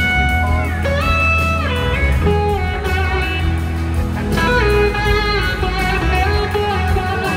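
Live band playing an instrumental passage, heard from the crowd: an electric slide guitar lead holds long notes that glide up and down between pitches, over bass and drums.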